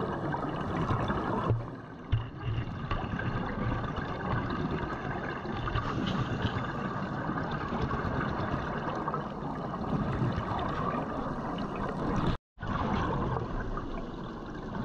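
Underwater ambience picked up by a camera in its dive housing: a steady watery hiss and crackle while the diver digs at a mantis shrimp burrow. The sound drops out for a moment near the end.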